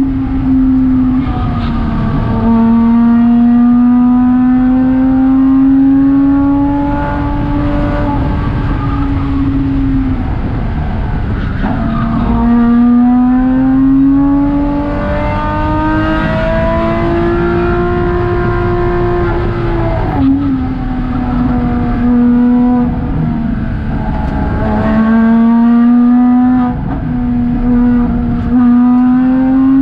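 Porsche Cayman 987.2's flat-six engine at full track pace, heard from inside the cabin. Its note climbs steadily, then drops back several times as the throttle and gears change.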